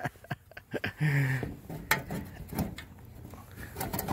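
Irregular sharp clicks and knocks of hands working at a garden tractor's seat-release tabs and sheet-metal body, with a short low creak-like sound about a second in.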